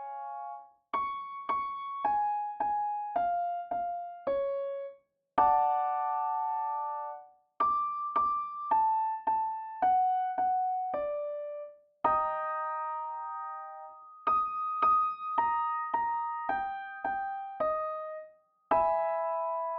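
Piano playing a vocal warm-up pattern: a chord held for about two seconds, then a short falling run of single notes, several struck twice. The pattern repeats, each time starting a little higher.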